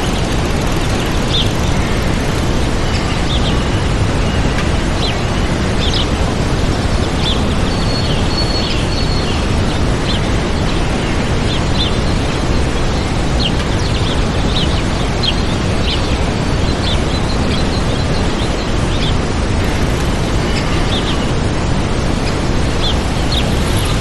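Steady, loud rush of a waterfall, with small birds chirping in many short calls over it.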